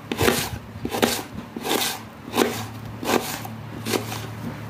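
Kitchen knife slicing a raw onion on a wooden cutting board, each cut ending in a knock of the blade on the board, at an even pace of about one cut every two-thirds of a second.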